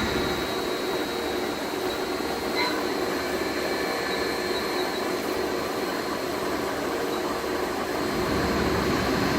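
Steady machinery hum with a thin, high-pitched whine, growing a little louder and deeper about eight seconds in.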